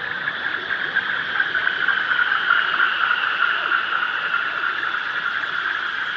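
Synthesized electronic space sound effect: a steady, dense fizz made of many tiny chirps and glides, swelling slightly in the middle.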